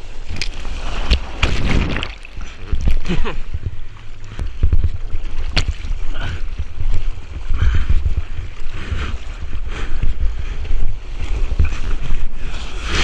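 Ocean water splashing and sloshing right at the microphone in the surf. A heavy low rumble of water buffeting runs under short, irregular splashes and a few sharp knocks.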